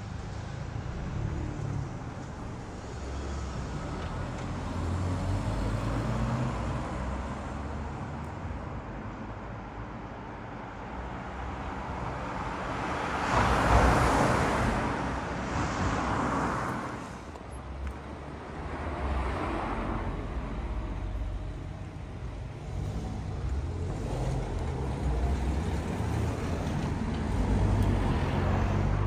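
Road traffic: a steady hum of passing vehicles, with one car passing close by about halfway through and another passing a few seconds later.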